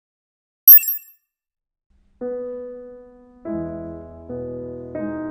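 A brief, bright, high-pitched chime sting under a second in, then silence, then solo piano music: a single held note about two seconds in, followed by chords changing about every second.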